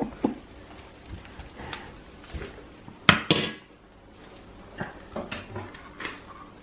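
Metal spoon clinking and scraping against frying pans while ground meat is spooned onto an omelet, in scattered sharp knocks, with a louder double clatter about three seconds in.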